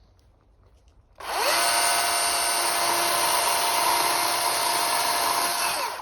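Electric motor of a cordless power tool spinning up about a second in, running steady at full speed for about four and a half seconds, then winding down and stopping.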